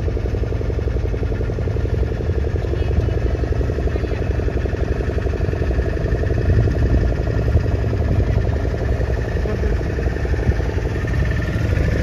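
Motorboat engine running steadily under way: a fast, even engine beat over a deep low rumble.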